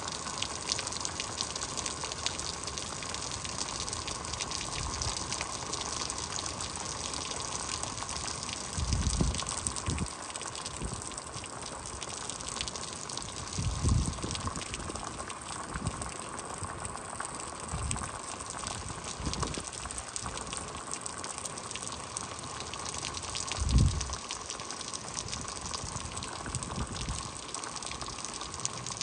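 Heavy rain falling steadily, a dense even hiss. A few short low thumps of wind buffet the microphone, the strongest about nine, fourteen and twenty-four seconds in.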